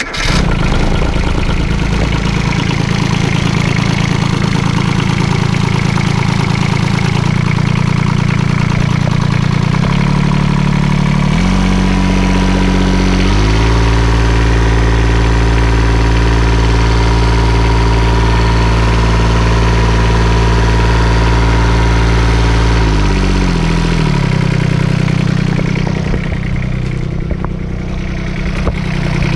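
Kubota K008 mini excavator's newly fitted small Kubota diesel engine starting and idling, revved up in steps about ten seconds in, held at the higher speed, then dropped back to idle about twenty-three seconds in. It runs smoothly, without the knock a faulty injector had caused before the injectors were swapped.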